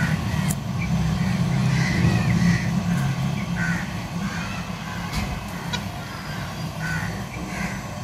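A motor vehicle's engine running as a low steady drone, loudest in the first half and fading after about four seconds, with short chirping bird calls repeating over it.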